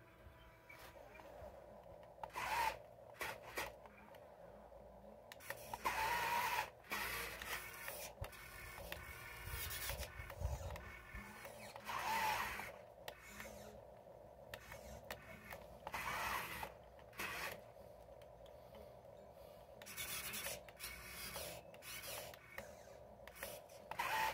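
Small electric motors and gearboxes of a toy RC wheel loader whirring in about six short bursts as it drives and works its bucket in sand, with rubbing and scraping.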